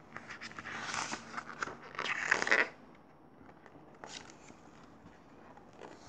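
Paper pages of a picture book being turned by hand: a rustling, sliding swish with small clicks in the first two and a half seconds, then a brief rustle about four seconds in.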